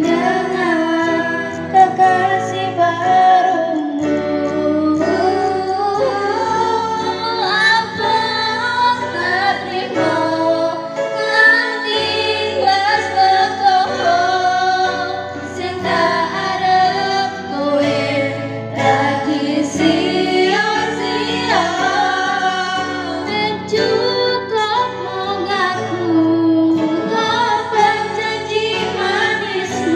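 Acoustic-version song: female singing over a low, sustained accompaniment.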